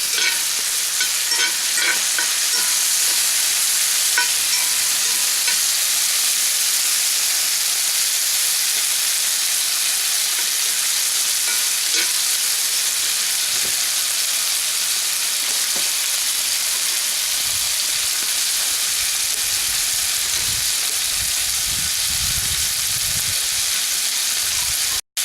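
Marinated duck gizzards and testicles frying in a hot pan, a steady sizzle, with a few light clicks in the first couple of seconds.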